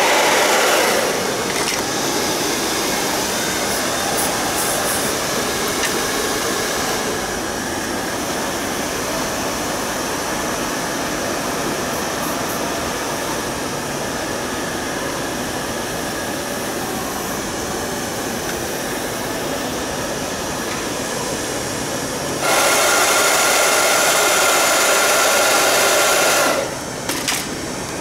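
Hair-styling noise: a steady whooshing blower sound from hair dryers in use, then a much louder hissing blast near the end that starts and stops abruptly after about four seconds.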